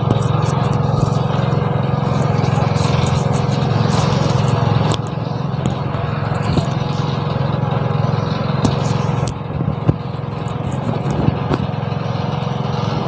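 Small engine-driven water pump running steadily, dewatering a flooded sewer trench through its suction hose, with a few sharp knocks over it.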